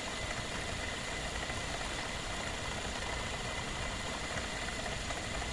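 A 36-volt brushless DC motor running on about 12 volts spins a small Tesla turbine through an O-ring belt, the turbine working as an air pump: a steady whir with a thin, steady high whine.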